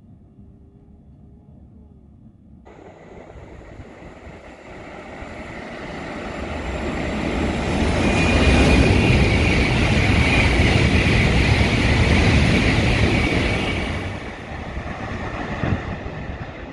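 E7 series shinkansen passing through a station at speed without stopping. A rush of air and rail noise swells over several seconds, peaks with a steady high whine on top, then fades away.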